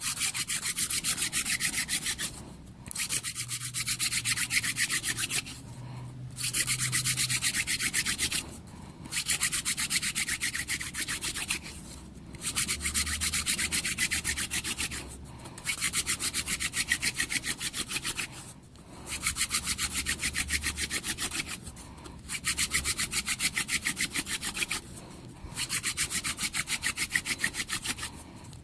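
Hand drill friction fire: a mullein spindle spun between the palms into a cedar hearth board, making a dry, fast wood-on-wood rubbing in about nine runs of two to three seconds each, broken by short pauses as the hands go back to the top of the spindle. The socket is heating up and filling with sawdust on the way to an ember.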